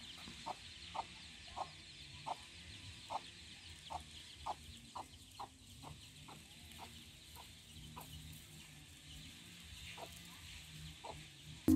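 Chickens clucking quietly in short repeated notes, about two a second, over a faint high hiss that fades about halfway through.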